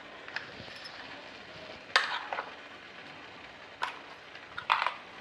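A spoon clinking and scraping against a metal kitchen vessel in a few separate short strokes, over a faint steady hiss.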